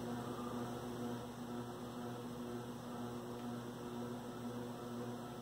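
Steady low electrical hum with a faint background hiss, holding even throughout; no distinct event.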